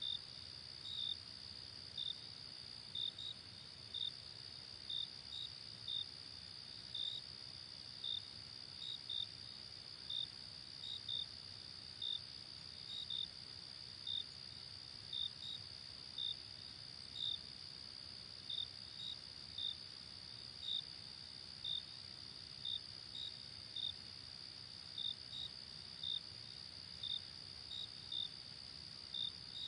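Night chorus of crickets: a steady high trill with a louder cricket chirping over it roughly once or twice a second, sometimes in quick pairs, over a faint low background hum.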